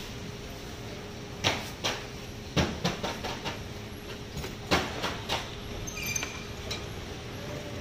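Scattered knocks and clacks of fruit-prep work: a knife and fruit against a plastic cutting board and steel trays, a few irregular sharp hits over a steady background hum.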